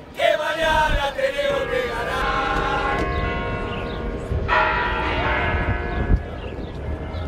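Large tower bells ringing, with long, overlapping ringing tones and a fresh strike about four and a half seconds in.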